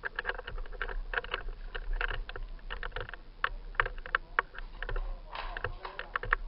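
A rapid, irregular run of clicks and crunches, several a second, with a denser crackling stretch about five seconds in.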